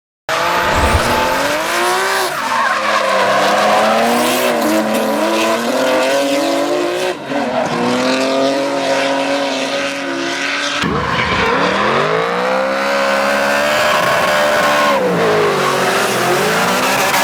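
BMW drift cars' engines revving hard, pitch rising and falling repeatedly, over tyre squeal and skidding. The sound starts abruptly from silence and changes suddenly about 7 and 11 seconds in, as one car's run gives way to another.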